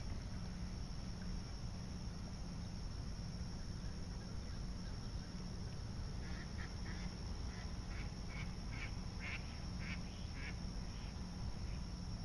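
Ducks quacking: a quick series of about ten short quacks about halfway through, over a steady low outdoor rumble.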